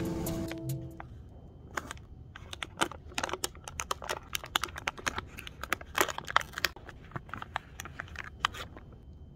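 Plastic snack wrapper crinkling as it is handled and pulled open by hand: a dense run of sharp, irregular crackles and rustles that starts about two seconds in and stops near the end.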